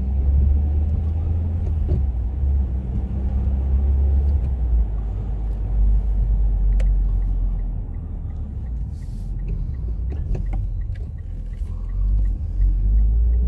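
Mitsubishi Lancer Evolution X's turbocharged 2.0-litre four-cylinder engine running on the road, breathing through a Cobb Stage 1+ SF aftermarket intake: a steady low rumble that rises and falls a little with the throttle. A faint quick ticking, about three a second, runs through the second half.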